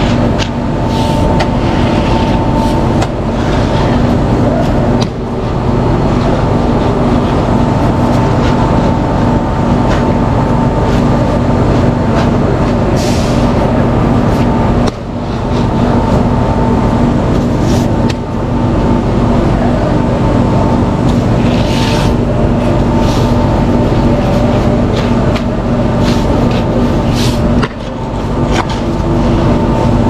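A vehicle running steadily, a loud constant drone with two steady tones through it, briefly dipping every few seconds, with a few short hisses.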